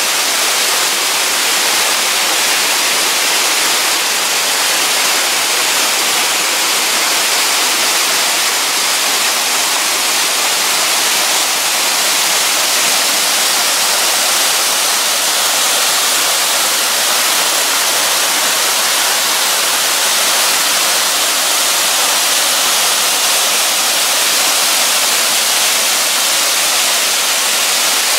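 A steady, loud hiss of even noise like static, weighted toward the high end, with no rhythm or change.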